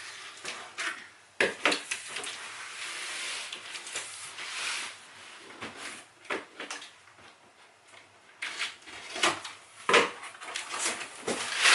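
A large cardboard box being handled and opened: a series of knocks and bumps, with a longer scraping rustle of cardboard about two to five seconds in.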